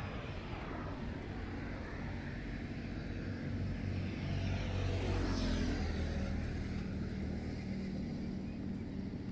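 A motor vehicle driving past: a steady engine hum that grows to its loudest a little past halfway, its pitch dropping as it goes by, then fades somewhat.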